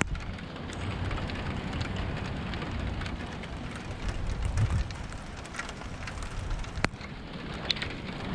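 Steady rain during a thunderstorm, with scattered drop ticks over a low rumble; one sharper tap about seven seconds in.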